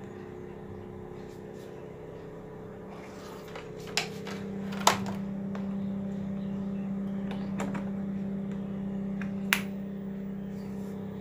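A few sharp clicks from a TV's plug being pushed into a power strip and its switch flipped on, the loudest about five seconds in. A steady low electrical hum runs underneath and grows louder about halfway through.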